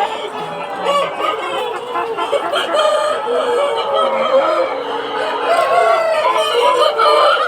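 A flock of hens and roosters clucking and crowing over one another, many calls overlapping.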